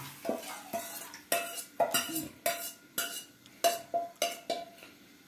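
Steel ladle knocking and scraping inside a steel bowl: about a dozen sharp metallic clinks, each with a short ring, as the last of the reserved water is scraped out into a kadhai. The clinks thin out near the end.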